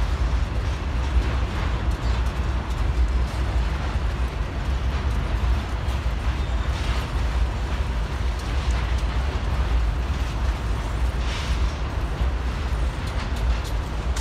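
Double-stack intermodal freight train's container cars rolling past: a steady low rumble and clatter of steel wheels on the rails, with a few brief higher rattles.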